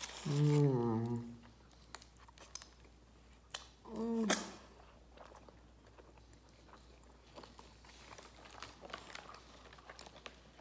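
Close-miked chewing and biting of food, with soft wet clicks and crunches. Two short hums of a voice break in, about half a second in and again around four seconds in.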